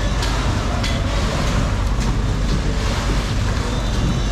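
Steady rushing background noise with a deep rumble, and a few sharp knocks from a broad fish knife working along a bluefin tuna's backbone on a plywood board.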